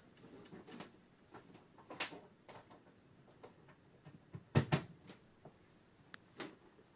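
Scattered light clicks and knocks from handling an old mains synchronous clock's motor and works, with one louder knock about four and a half seconds in. No motor hum is heard.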